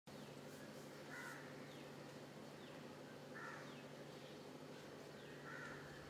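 Faint bird calls: three short calls repeating about every two seconds, with brief falling chirps of another small bird between them, over a steady low hum.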